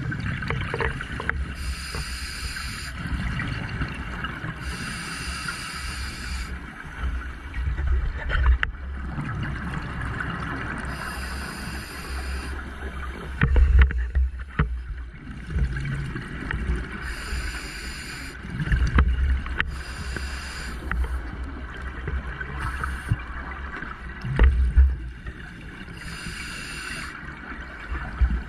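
A scuba diver breathing through a regulator underwater: a hiss on each inhale and a loud, gurgling rush of exhaust bubbles on each exhale, repeating every few seconds.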